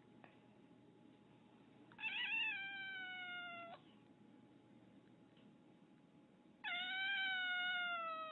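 Domestic cat giving two long, drawn-out meows, the first about two seconds in and the second, longer one near the end, each sliding slowly down in pitch.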